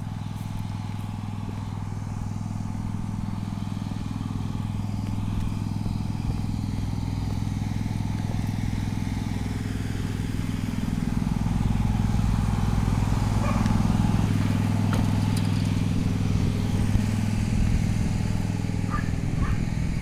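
A small engine running steadily with a low, even drone, growing louder about halfway through.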